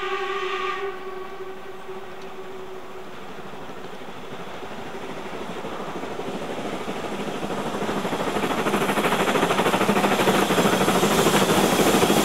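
A steam locomotive's whistle sounds and cuts off about a second in. The train then approaches, its running noise growing steadily louder, with a fast, even beat over the last few seconds.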